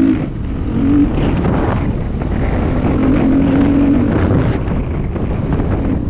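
Husqvarna dirt bike engine under way, its note held steady for stretches and easing between them as the throttle changes. Wind buffets the helmet-mounted microphone, and there are short knocks from the rough track.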